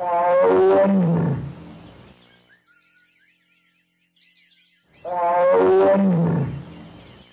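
A deep animal call heard twice, five seconds apart, each lasting about a second and a half and dropping in pitch as it ends, with faint high chirping in the gaps between.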